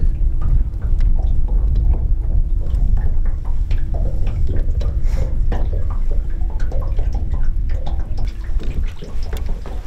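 Water splashing and dripping in many small irregular splashes, over a steady low rumble and a thin steady hum that stops near the end.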